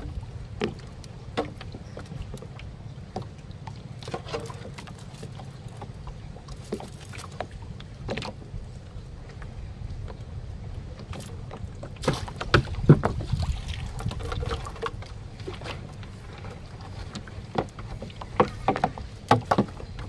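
Small wooden paddle boat on the water: scattered knocks and clicks of gear against the hull over a steady low background noise, with a busier cluster of knocks about two-thirds of the way through.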